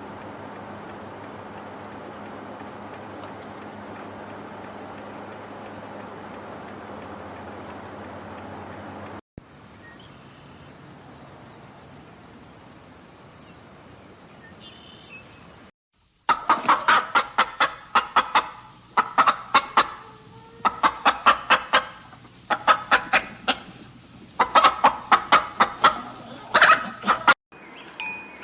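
A steady rushing noise with a low hum, then a quieter stretch with faint bird chirps. From about halfway on, a chicken clucks loudly in about six quick runs, each run a second or more long.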